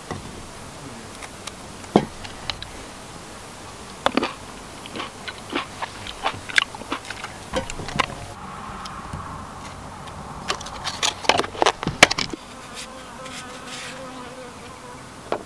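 Scattered sharp clicks and knocks, loudest in a cluster a little after the middle, over a faint steady buzz that comes and goes.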